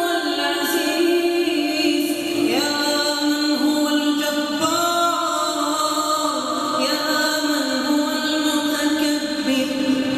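A reciter's solo voice chanting Arabic prayer recitation in a slow melodic line, holding long drawn-out notes that glide from one pitch to the next.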